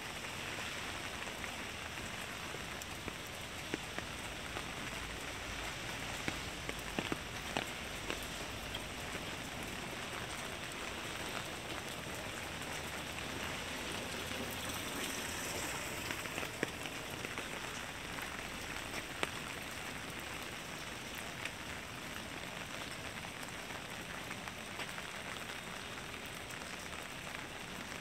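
Steady rain falling on a wet paved street, with scattered sharper ticks of single drops.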